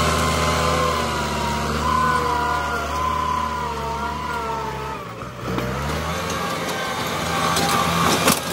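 Diesel engine of an M8540 tractor working under load while pushing dirt with a front blade, running steadily with a whine above it. About five seconds in the engine note drops off briefly, then picks up again, and a few knocks sound near the end.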